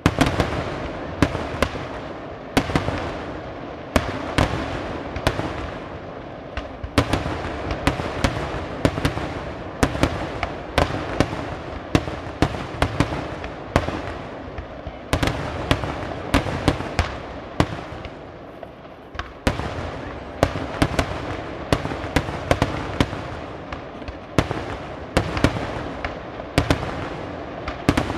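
Fireworks going off: a long, irregular string of sharp bangs, roughly one or two a second, each trailing off, over continuous noise that never dies away between them.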